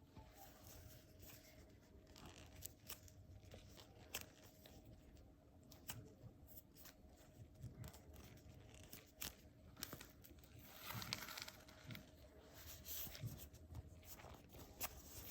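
Faint handling noises of squishy toys: scattered soft clicks and taps, with a brief rustle of crinkling plastic packaging about two-thirds of the way through.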